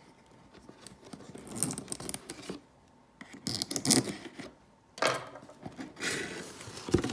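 Cardboard box being cut open, with scratchy cutting and tearing in several short bursts and a dull thump near the end.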